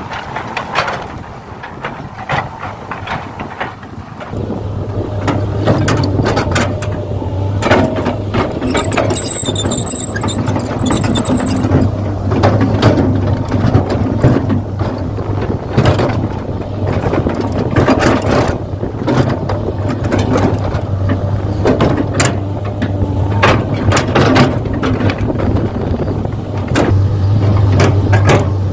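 Gear motors of a radio-controlled scale Kobelco SK200 excavator whirring, with many small clicks and knocks. A steady motor hum sets in about four seconds in, and a brief high whine comes in the middle.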